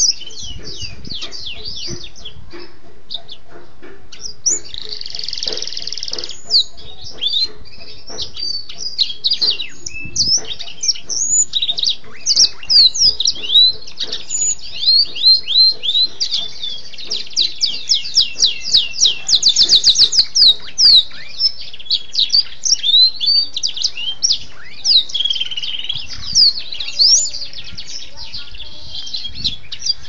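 Domestic canary singing a long, unbroken song of quick rising whistled notes, with a buzzy roll about five seconds in and a fast, tightly packed trill just past the middle.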